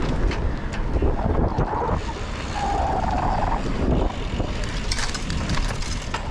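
Wind buffeting the microphone over the rumble of a cyclocross bike's tyres on a dirt and gravel course, with the bike clicking and rattling over bumps. A short steady tone sounds about two and a half seconds in.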